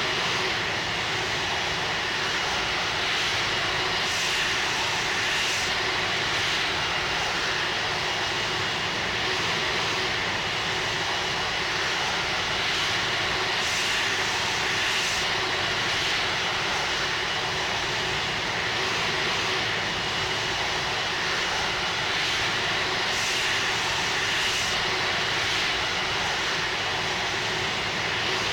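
Airbus A330-300's jet engines running steadily: an even rushing noise with a faint steady whine, unchanging in loudness.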